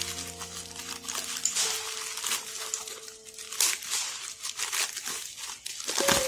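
A white plastic Amazon mailer being torn open and crinkled by hand: a run of rustling, crackling and tearing, with louder crackles about halfway through and near the end.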